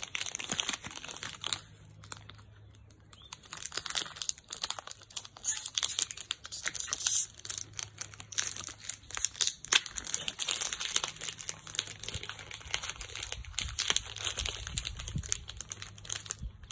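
Clear plastic packaging bag crinkling as it is handled and opened, an irregular run of crackles.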